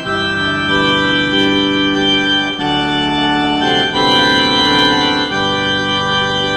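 Church organ playing a hymn in slow, sustained chords that change every one to two seconds.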